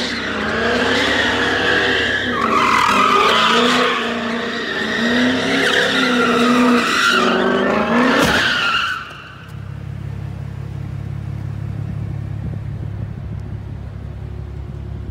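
A car's tyres squealing with a wavering pitch as it spins donuts, the engine revving hard under them. About nine seconds in, the squeal stops suddenly, leaving a steady low engine rumble.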